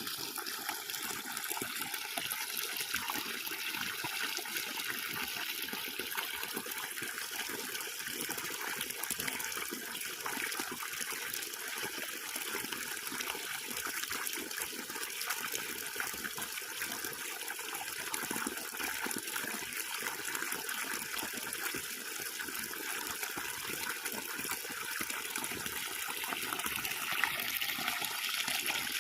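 Water running steadily, an even rushing hiss that holds without change.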